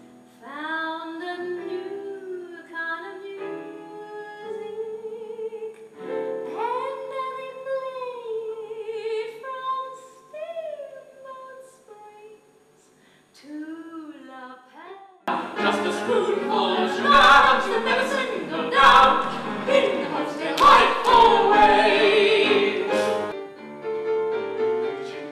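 A woman singing a show tune in a high, classical style over piano accompaniment. About fifteen seconds in, a louder, fuller passage begins and runs for several seconds before the music drops back.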